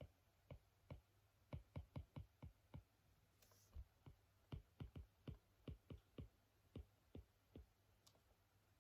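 Faint, irregular light clicks or taps, about two dozen, some in quick runs, stopping about a second before the end.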